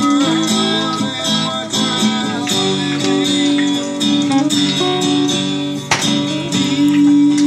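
Background music led by an acoustic guitar.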